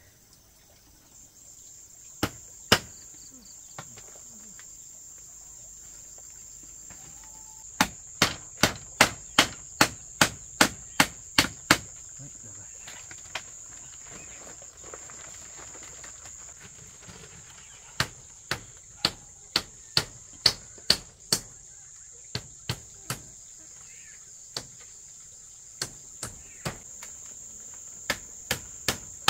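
Hammer blows nailing a bamboo strip over a tarpaulin onto a bamboo wall. They come in two runs of quick, even strikes, about a dozen and then about eight, with a few single blows between. A steady high-pitched insect drone runs underneath.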